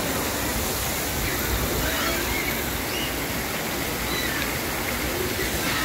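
Steady rushing hiss of fountain water jets spraying onto stone paving.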